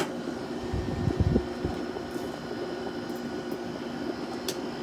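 Haier 5,200 BTU window air conditioner running on low cool, its fan and rotary compressor giving a steady hum. A few soft knocks come about a second in.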